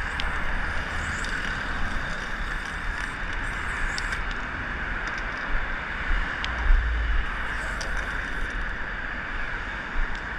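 Steady traffic noise from cars driving past on a multi-lane city road, with a few low bumps on the microphone about two thirds of the way through.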